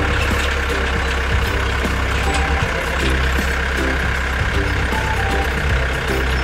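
Tractor engine running steadily at a constant pitch.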